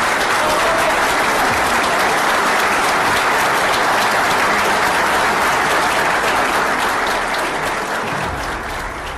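A large seated audience applauding, a dense steady clapping that fades away near the end.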